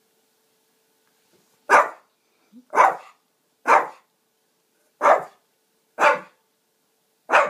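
A Shih Tzu barking six times, single sharp barks about a second apart, starting a little under two seconds in: demand barking for a drink of water.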